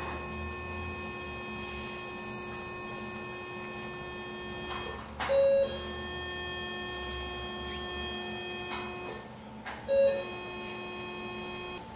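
Steady electronic hum from operating-room equipment, broken twice by a short, loud beep, about five seconds in and again near ten seconds.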